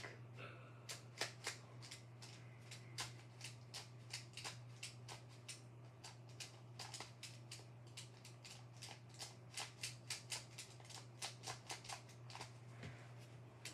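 A plastic Skewb twisty puzzle being turned by hand: faint, quick, irregular plastic clicks, several a second, over a steady low hum.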